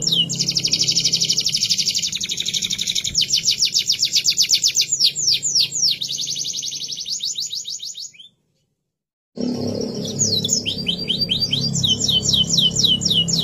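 Domestic canary singing: long, rapid trills of repeated high sweeping notes that shift in speed and pattern, over a faint low hum. The song cuts to dead silence for about a second some eight seconds in, then the trills start again.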